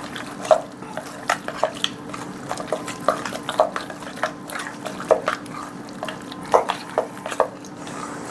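A utensil stirring a thick cream-cheese dip in a stainless steel mixing bowl, with irregular clinks and scrapes against the metal. A faint steady hum runs underneath.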